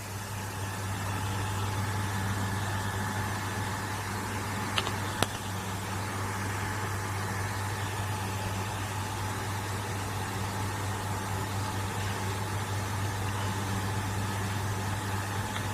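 Heller 50 W electric box fan running steadily: a constant low hum under a rush of moving air, with two small clicks about five seconds in.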